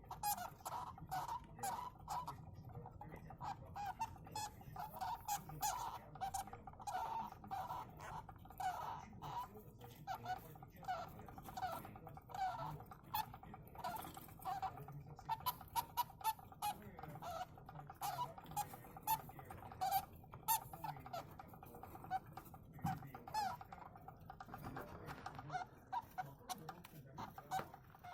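Young hamsters squeaking, a dense run of short, high chirps with frequent faint clicks. It is a harmless squeak that young hamsters make, which the breeder says is typical of littermates huddled together in the nest.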